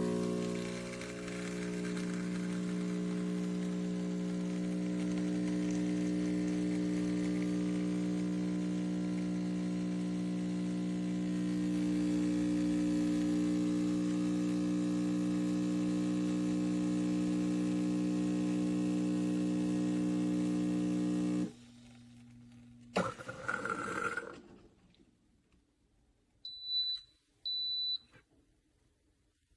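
Neretva 15-bar espresso machine's pump humming steadily, then cutting off abruptly about three-quarters of the way through. A short burst of noise follows, then two short high beeps.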